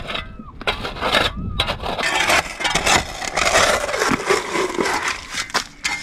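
Digging in wet beach sand on a tidal flat to reach a horse clam: repeated uneven scraping and scooping strokes.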